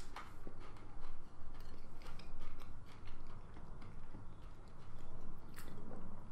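A person chewing a mouthful of cracker and cheese, with irregular small crunches.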